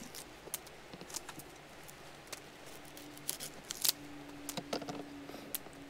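Small wood campfire crackling, with irregular sharp snaps and pops. A faint steady low hum joins about two seconds in.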